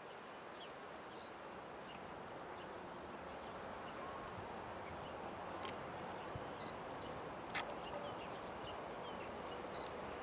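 Quiet open-air ambience with a few short bird chirps, while the faint noise of a distant approaching train slowly grows louder. A single sharp click comes about two-thirds of the way through.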